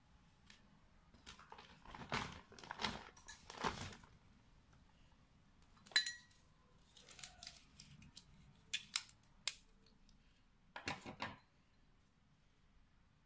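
Hands handling product packaging: crinkling and rustling of the card-and-plastic wrapping in the first few seconds, then a single sharp clink with a short ring as the clear glass mug and tea infuser are knocked together, followed by a few light taps and another brief rustle.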